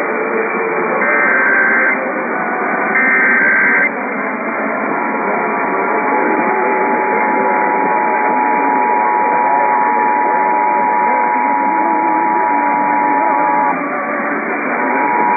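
Emergency Alert System tones over a hissy, band-limited radio channel. First come the ends of the three SAME digital header bursts, each a harsh data warble about a second long. Then the two-tone EAS attention signal (853 and 960 Hz together) holds steady for about nine seconds and cuts off, and a single steady tone starts again near the end.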